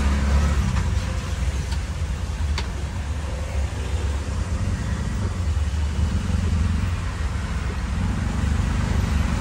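Auto-rickshaw engine running with a steady low rumble, under a continuous hiss of rain and wet road noise.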